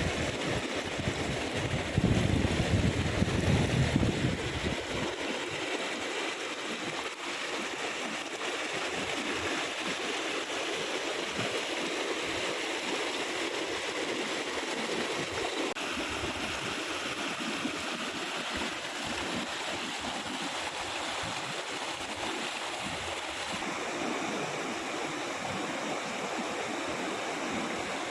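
Waterfall water rushing and splashing in a steady, even roar. A deeper rumble sits under it for the first few seconds, then fades out.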